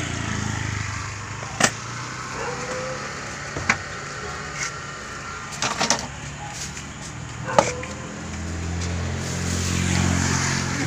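A motor vehicle's engine running close by as a steady low hum, growing louder near the end. A few sharp clicks and knocks sound over it.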